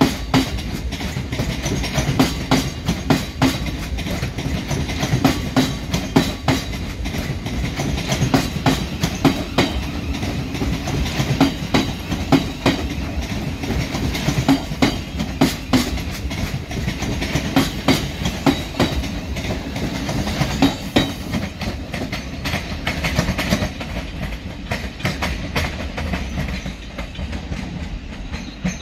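Thameslink Class 700 (Siemens Desiro City) electric multiple unit passing close by, its wheels clicking rapidly and irregularly over rail joints and pointwork over a steady rumble. The clicking and rumble fade in the last few seconds as the train moves away.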